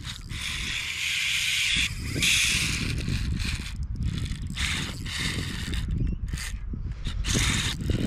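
Shimano Stradic Ci4+ 3000 spinning reel's drag buzzing as a hooked jewfish pulls line off the spool, in runs of a second or two with short breaks between.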